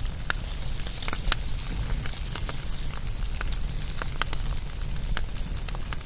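Crackling wood fire: irregular sharp pops and snaps over a steady low rumble and hiss.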